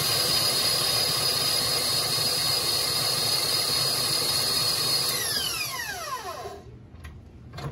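Tilt-head stand mixer motor running on high speed beating cake batter, a steady high whine; about five seconds in it is switched off and winds down with falling pitch. A couple of light clicks near the end.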